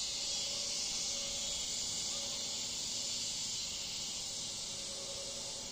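Chorus of cicadas in the trees singing non-stop, a steady high-pitched buzzing that eases slightly toward the end.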